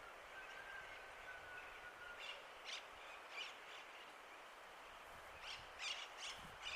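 Parrots in a flock calling: faint, short, sharp calls, a few spaced out in the middle and a quicker run of four near the end.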